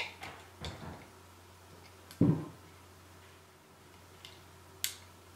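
Small clicks and knocks of hands and needle-nose pliers working at the plastic CO2 valve assembly of a SodaStream Source, with one dull thump about two seconds in and a sharp click near the end.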